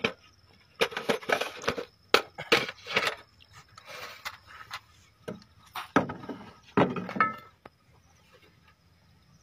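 A run of irregular woody knocks, clicks and rustles that stops about three-quarters of the way in.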